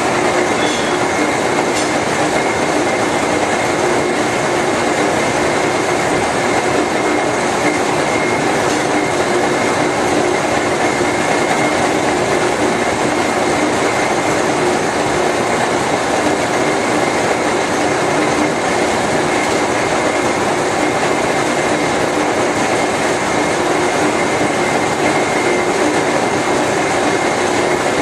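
GE/Fitchburg horizontal spline and pinion hobber running, its gear train giving off a steady mechanical clatter with a constant high whine over it.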